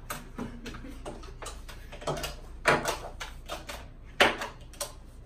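A scatter of light, irregular clicks and taps, with a few brief bits of quiet voice.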